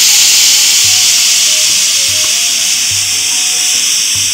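Pressure cooker whistle blowing off steam: a loud, steady hiss with a high whistling tone in it, the sign that the cooker with the chicken curry has come up to pressure.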